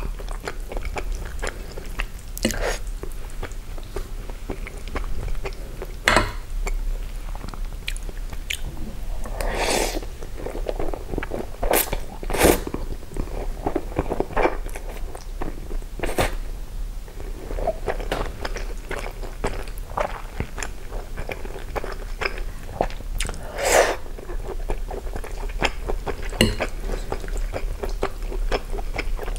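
Close-miked eating of spaghetti with sausage slices and cheesy meat sauce: wet chewing and mouth clicks, with noodles slurped in twice in longer bursts.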